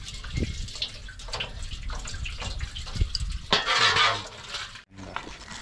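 Diesel draining from the bottom of a truck's fuel filter, trickling over a hand and splattering into a steel bowl. The filter is being drained because the diesel is dirty. The splashing gets louder for about a second near the end, then cuts off suddenly.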